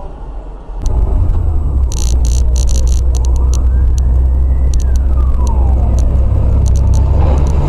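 A car on the road with a loud, steady low rumble that starts abruptly about a second in, recorded by a dashcam. Over it come clusters of sharp clicks and a faint tone that slowly rises in pitch and then falls.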